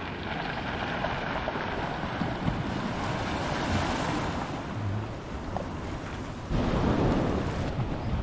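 Sea waves breaking and washing over the rocks at the foot of a low cliff, with wind buffeting the microphone. The wind rumble gets louder about two-thirds of the way through.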